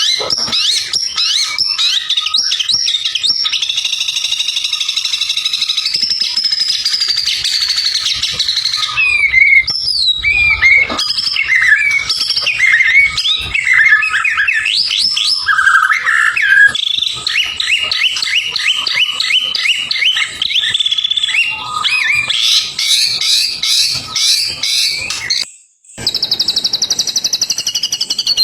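White-rumped shama (murai batu) singing continuously in a long, varied run of whistles, slurred notes and rapid chattering phrases. The song cuts out briefly near the end and resumes as a fast, even trill.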